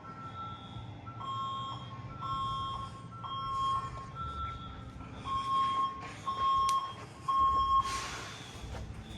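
Fire alarm notification appliances sounding a repeating electronic beep tone during an alarm test, at two pitches about one beep a second, partly overlapping as if from more than one device. A low rumble runs underneath, and there is a short burst of hiss about eight seconds in.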